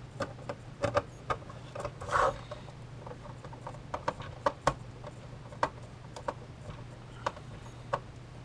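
A hand screwdriver driving Phillips screws into the plastic case of a flip-display alarm clock: irregular small clicks and taps of the driver and plastic, with a short scrape about two seconds in, over a steady low hum. The screws have shallow heads that give the driver little to bite into.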